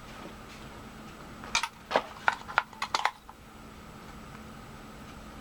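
AA batteries being handled and pressed into a plastic remote control's battery compartment: a quick cluster of small hard clicks and clinks about one and a half to three seconds in.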